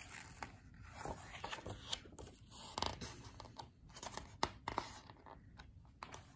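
Paper pages of a hardcover picture book being turned by hand: a string of soft rustles, swishes and light scrapes.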